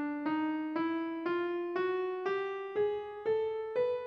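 Piano playing an ascending scale one note at a time, about two notes a second, rising mostly by semitones with one whole step near the top. This is the hendecatonic scale 3071, Chromatic Undecamode 2: C, C#, D, D#, E, F, F#, G, G#, A, B, up to the high C.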